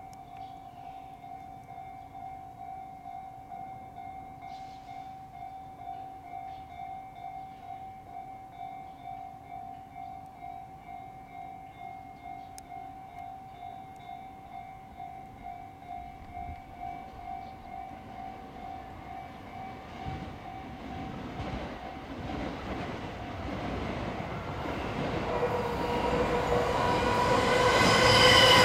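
Level-crossing alarm ringing in steady, quickly repeated strokes as a JR E231-series electric commuter train approaches. The train's rumble and wheel noise grow louder over the last eight seconds until it passes close by, with a pitched whine over the top near the end.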